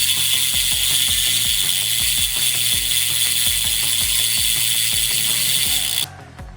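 Bicycle rear hub freewheeling: the pawls ratchet in a fast, loud buzz that starts suddenly and cuts off about six seconds in.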